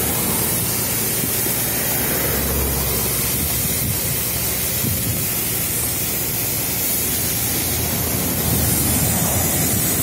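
Fire hose spraying water onto a burnt-out car to cool it after the fire was put out: a steady hiss of spray, with a low rumble underneath at times.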